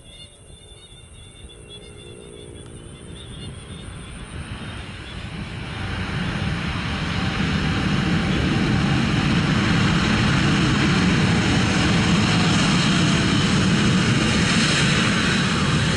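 Boeing 777-300ER's GE90 turbofan jet engines running, growing from faint to loud over the first six to eight seconds as the airliner comes closer on the runway, then a steady loud rush.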